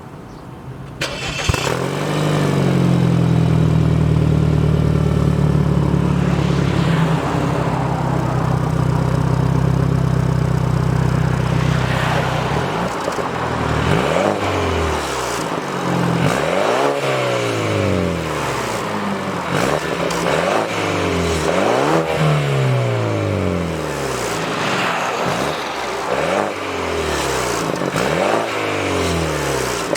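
BMW F30 engine running through an aftermarket single-exit exhaust with a universal Mega Racing muffler. It holds a steady drone for about ten seconds, then from about halfway the revs rise and fall over and over.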